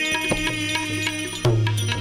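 Instrumental Gujarati bhajan music: a sustained melody over hand-drum strokes and a deep bass note, the bass getting louder about one and a half seconds in.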